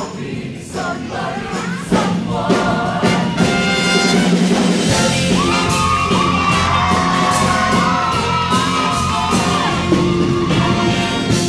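Show choir and its band playing an upbeat number over a steady drum beat, with the singers shouting and whooping over it during a dance break. The music gets louder about two seconds in, and held notes run through the middle.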